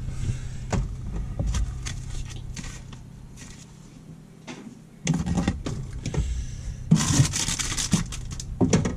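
Items being taken out of an open refrigerator: clinks, knocks and scraping of plastic containers and rustling packaging over a steady low hum, the handling loudest about five seconds in and again near the end.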